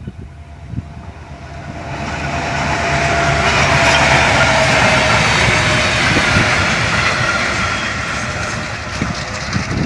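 H class diesel locomotive passing close by, its engine and wheel noise building to a peak about four seconds in and then easing off. Near the end, clicks of wheels over rail joints follow as the wagons go by.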